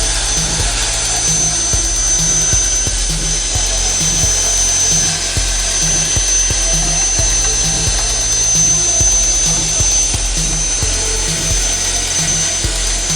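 Background music with a steady beat, over a constant high-pitched whine.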